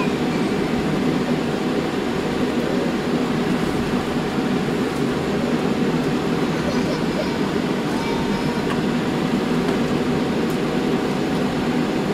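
Steady cabin noise inside a Boeing 787-8 airliner taxiing after landing: a constant low rumble from the engines and air conditioning, with a faint steady whine above it.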